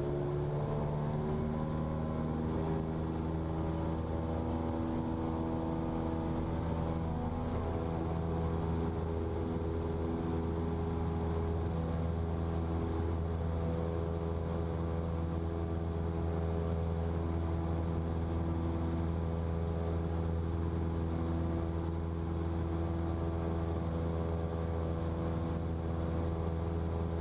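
Cessna's carbureted single piston engine and propeller at full power for a touch-and-go takeoff. The pitch rises over the first second or two, then holds a steady drone.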